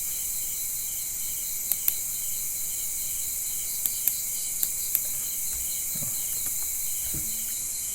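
Crickets chirping in an even pulsing rhythm over a steady high hiss, with a few sharp clicks, some in quick pairs, like a computer mouse being clicked.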